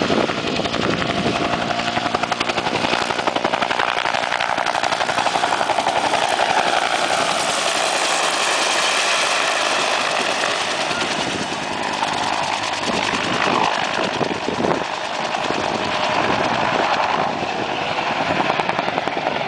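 Bell UH-1 Iroquois (Huey) helicopter flying a low display pass, its two-bladed main rotor beating rapidly and steadily over the turbine's noise.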